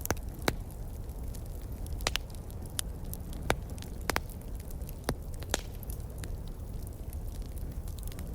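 Campfire crackling, with irregular sharp pops and snaps over a low steady rumble.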